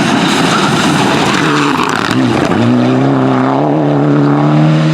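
Rally car driving flat out at high revs, with a loud rush of noise over the engine at first. About two and a half seconds in the engine note dips briefly, as at a gear change, then holds high and climbs slightly.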